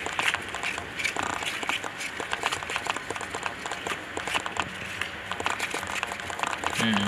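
Hamster scrabbling at the wall of a plastic tub and shifting in loose bedding: a run of quick, irregular clicks and scratches.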